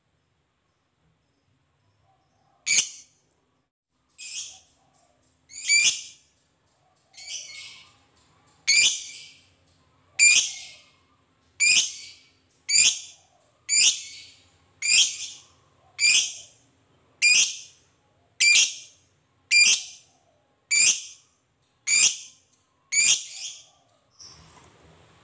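A lovebird giving a series of short, shrill, harsh calls, beginning about three seconds in and repeating roughly once a second, the calls coming closer together as the series goes on.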